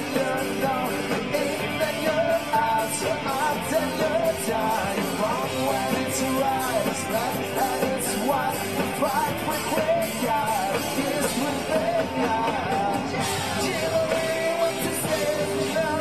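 Live rock band playing: a male lead singer sings into a microphone over electric guitars and drums.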